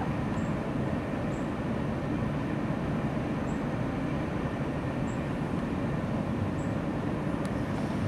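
Steady low outdoor rumble, with faint short high chirps every second or two.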